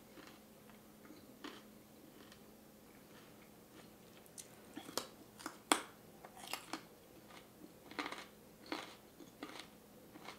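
Faint, irregular clicks and small crunches over a low steady hum, sparse at first and more frequent in the second half.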